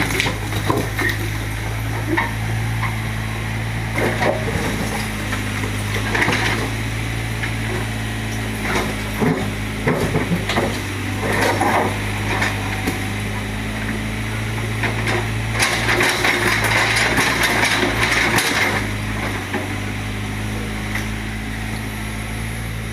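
Doosan 55W excavator's diesel engine running steadily while bricks and rubble clatter and knock as the machine breaks down a house wall and scoops debris. A dense burst of scraping and crashing rubble comes about two-thirds of the way through.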